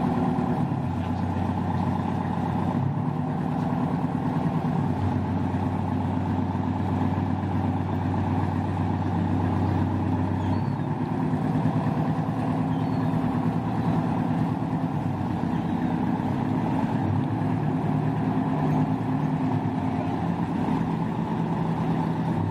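Motor launch's engines running steadily as the boat manoeuvres off the quay, a low hum whose note shifts about halfway through.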